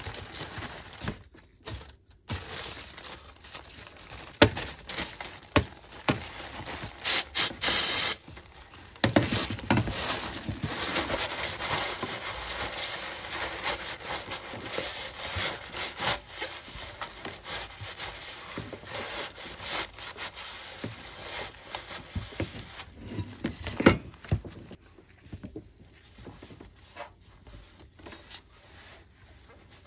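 Shop towels rubbing and wiping around the throttle body opening of an intake manifold, being cleaned with brake parts cleaner. About seven seconds in there is a loud hiss of the cleaner spraying for about a second. A couple of sharp knocks fall about four seconds in and near twenty-four seconds.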